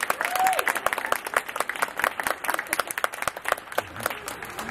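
Audience applauding, with individual hand claps standing out densely and irregularly.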